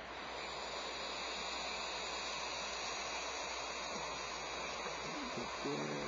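Barn owl nestlings hissing together, a steady rasping hiss. A brief low pitched sound comes near the end.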